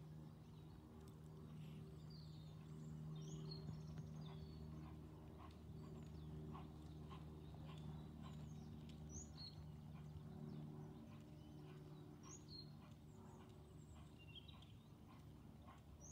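Faint hoofbeats of a horse trotting on a chip-covered arena surface, plainest in the middle as it passes close. A small bird repeats a short high chirp every few seconds over a steady low hum.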